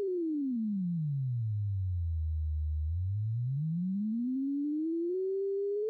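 Synthesizer sine-wave tone playing continuously while its frequency is swept with a slider: the pitch glides down to a low hum, holds there for about a second, then glides back up and settles on a steady higher note near the end.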